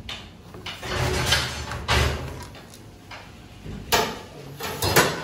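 Handling sounds at a baklava work table: a sliding, swishing stretch as a large sheet of phyllo dough is smoothed by hand. Then a couple of sharp knocks about four and five seconds in.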